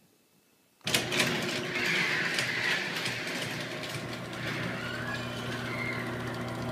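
Chain-drive garage door opener switching on with a click about a second in, then running steadily: a motor hum under the rattle of the chain travelling along the rail.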